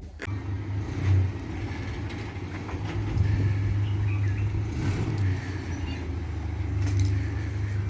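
A car driving, a steady low engine and road rumble.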